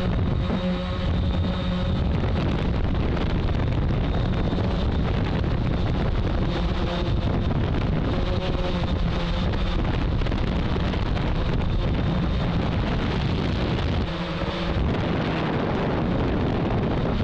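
Hexacopter's electric motors and propellers humming with a few steady tones, under a heavy rumble of wind on the microphone.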